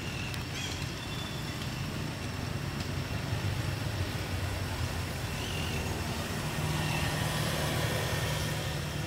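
A steady low engine-like hum, with a few faint short high chirps over it.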